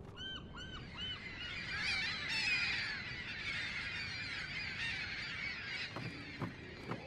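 A flock of birds calling: a few separate rising-and-falling calls at first, then a dense chorus of many overlapping calls. Near the end, a few footsteps thump on wooden boards.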